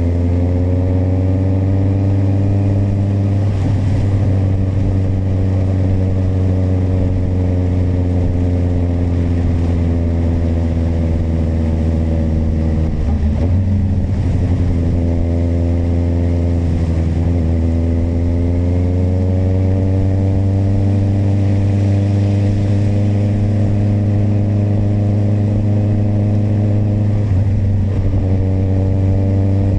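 Kawasaki motorcycle engine running under way, its pitch rising and falling with the throttle. It drops away about halfway through, climbs again over the next few seconds, and dips once more near the end.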